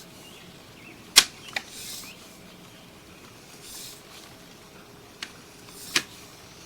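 Four sharp clicks or knocks, a loud one about a second in followed quickly by a softer one, then another pair near the end, over a faint hiss.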